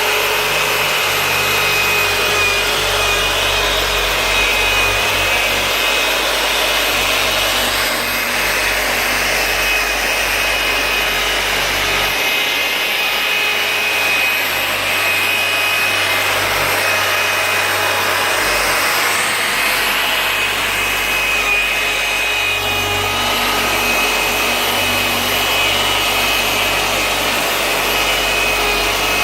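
Handheld power tool running steadily with a thin motor whine, its pad rubbing against the glass to remove scratches.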